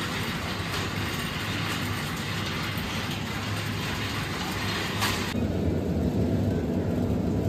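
Steady supermarket background noise: an even hiss with a low hum under it. The hiss drops away about five seconds in and the hum comes forward.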